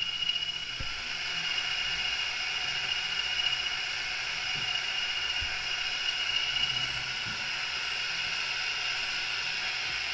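Model CP 1400 diesel locomotive running, a steady mechanical whir with a thin high whine held throughout.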